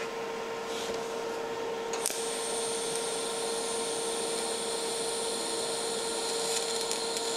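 DC TIG welding arc started with high frequency, on a galvanized washer and steel bicycle sprocket. Over a steady hum, the arc strikes with a sharp click about two seconds in and settles into a steady high-pitched buzzing hiss, with a few light crackles near the end.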